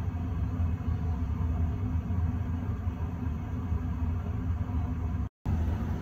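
Trane XV80 gas furnace running with its burner lit, firing normally: a steady low rumble.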